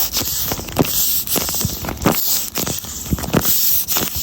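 A paper squishy being squeezed in the hands, with irregular crinkling and crackling of paper and tape.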